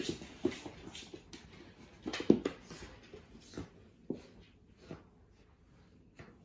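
A papillon scuffling with a fabric cushion on a wooden floor. Cloth rustles and the dog's claws click and scrabble on the boards in irregular bursts, loudest about two seconds in and sparser after that.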